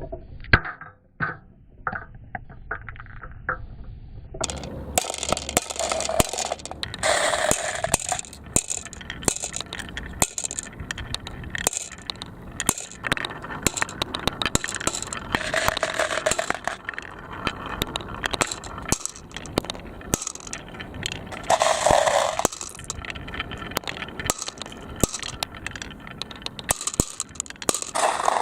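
Plastic marble-run balls rolling and clattering down the track, with many small clicks and knocks. The clicks are sparse for the first few seconds, then turn into a busy clatter with a few louder rushing spells.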